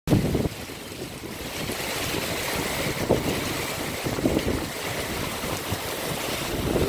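Heavy rain pouring with gusting wind; the wind buffets the microphone in uneven low rumbles, hardest in the first half second and again near the end, over a steady hiss.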